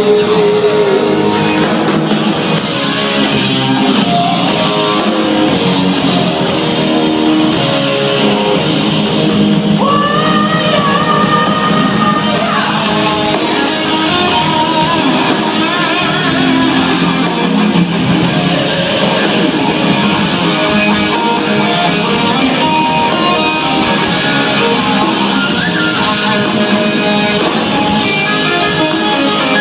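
Rock band playing an instrumental passage between sung verses, with guitar to the fore.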